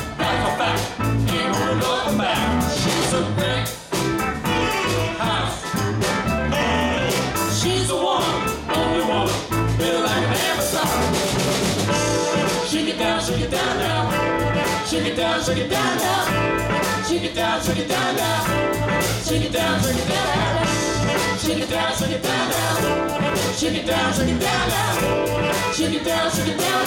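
Live band playing a rock song: a woman singing lead over electric guitar, bass guitar and keyboard, with a steady beat.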